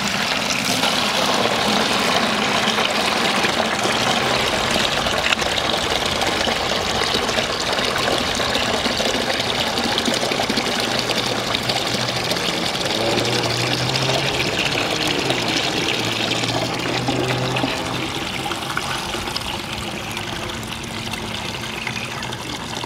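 Water from two garden hoses pouring steadily into five-gallon plastic buckets during a timed flow test of the hose supply. The splashing becomes a little quieter in the last few seconds.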